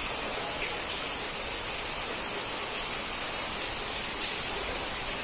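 Heavy rain pouring down steadily, an even hiss of downpour with no breaks or thunder.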